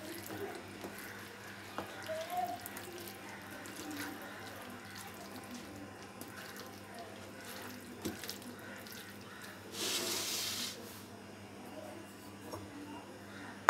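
A wooden spoon stirring and scraping a thick, moist cauliflower-and-beef curry in a non-stick pan, with scattered soft wet clicks and scrapes. A short hiss of about a second comes about ten seconds in.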